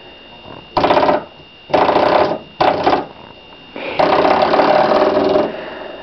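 Spring door stop flicked by hand, twanging with a buzzing boing four times; the last twang rings longest, about a second and a half, before dying away.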